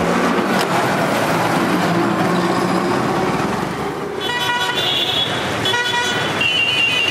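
Busy road traffic: a steady din of engines, then vehicle horns honking several times, each toot about a second long, from about four seconds in.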